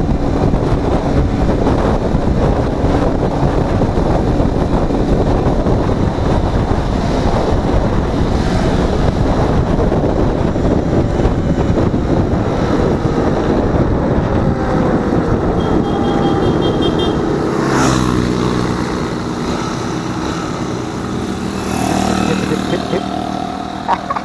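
Motorcycle ridden at speed with wind rushing over the microphone and the engine running steadily underneath. Near the end the wind noise eases and the engine's steady note stands out as the bike slows onto the shoulder.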